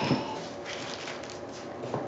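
Small handling noises: a light knock at the start, then a short stretch of rustling or scraping.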